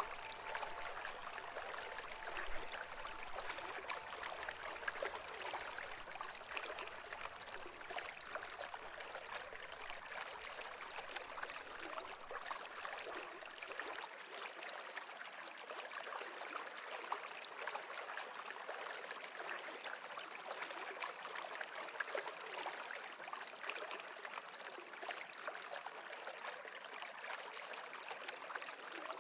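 Running water of a small stream, a steady, even babbling.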